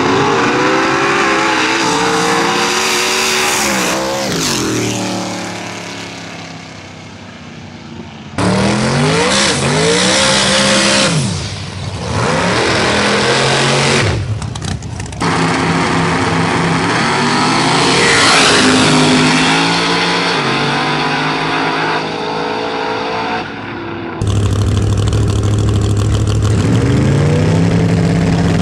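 Street-race cars' engines revving and accelerating hard at the launch, the pitch climbing and dropping again and again, in several clips cut together with abrupt changes about 8 and 24 seconds in.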